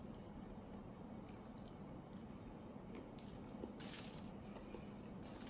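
Quiet chewing of pasta, with a few short clicks and scrapes of a metal fork in an aluminium-foil tray, the loudest just before four seconds in.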